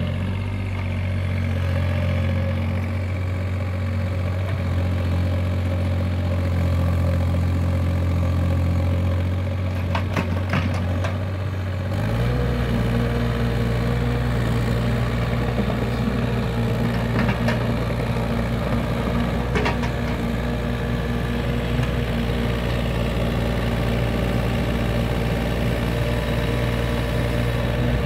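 Takeuchi TB28FR mini excavator's diesel engine running steadily while the machine slews and digs, its note shifting about twelve seconds in. A few short knocks are heard over it.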